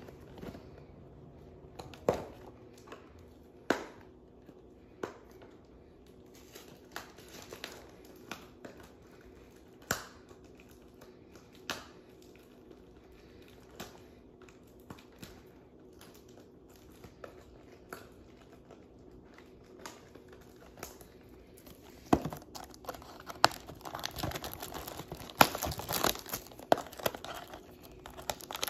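Clear plastic shrink-wrap being torn off a trading-card box: scattered sharp crackles and snaps every second or two, then continuous crinkling and tearing near the end.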